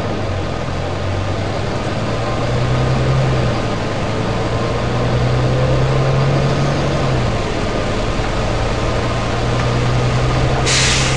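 Volvo B9TL double-decker bus's six-cylinder diesel engine running, its pitch stepping up and down a few times. Near the end a short, sharp hiss of compressed air is released from the bus's air system.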